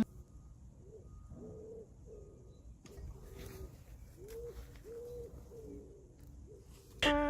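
A bird cooing: a series of low, soft hoots, each rising and falling, coming in short groups.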